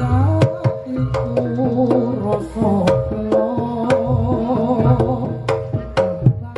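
Reog Ponorogo music (tabuhan reog): a percussion ensemble playing quick, sharp drum strokes under a held, wavering melody line that bends in pitch.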